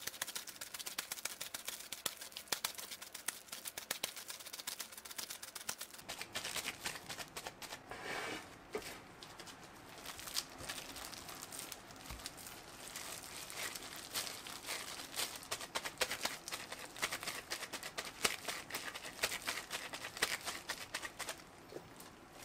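Thin plastic disposable gloves crinkling and raw minced meat squishing as hands knead and shape hamburg steak patties in a glass bowl. The crinkling is dense and rapid at first and thins out about six seconds in.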